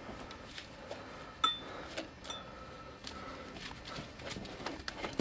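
Light metal clinks and taps from handling car brake parts and hand tools. The sharpest is a short ringing clink about one and a half seconds in, with another brief ring near the middle.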